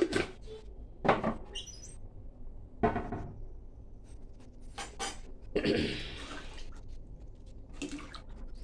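A few sharp knocks and clinks of a ladle and kitchen utensils against an aluminium pressure cooker, spaced a second or two apart, with the ladle stirring the liquid in the pot near the end.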